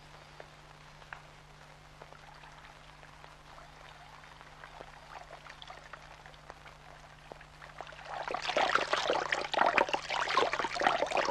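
Water running and splashing, starting suddenly about eight seconds in, after a stretch of faint steady hum from an old film soundtrack.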